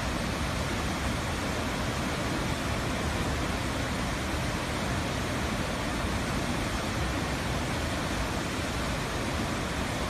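Large waterfall rushing steadily, its water pouring over rock ledges into a gorge.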